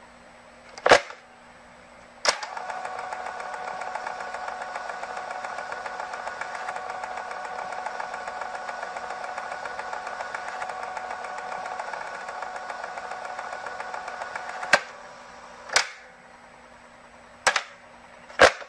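A film-projector sound effect. A sharp click about two seconds in starts a steady mechanical whirr with a fine rapid flutter. The whirr stops with another click about three quarters of the way through, and a few more sharp clicks follow.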